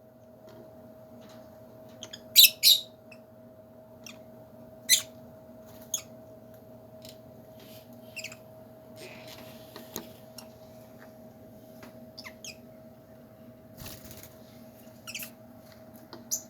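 Lovebirds giving short, high-pitched chirps at irregular intervals, the loudest a quick pair about two and a half seconds in, over a steady low hum.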